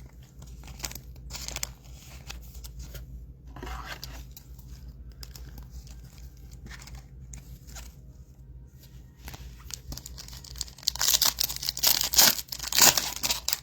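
A trading card pack wrapper being torn open and crinkled, loudest in a run of sharp rips about eleven to thirteen seconds in, with quieter rustling of the wrapper and cards before that.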